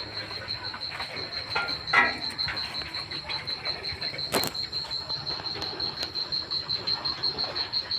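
Insect chirring: a steady, high, rapidly pulsing trill throughout. A brief louder sound comes about two seconds in, and a sharp click about four and a half seconds in.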